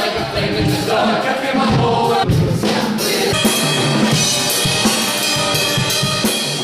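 A live band playing with the drum kit prominent: bass drum, snare and cymbal strokes under pitched instruments.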